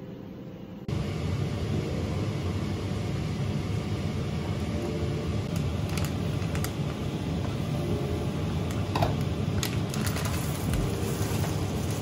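Water at a boil in an enamel saucepan, a steady low rumble that starts suddenly about a second in. From about halfway, a plastic pasta bag crinkles and rustles in short crackles as it is handled and opened over the pot.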